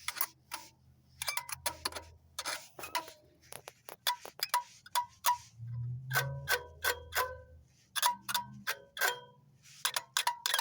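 Small metal bells rung irregularly, in quick clusters of sharp strikes, each with a short bright ring.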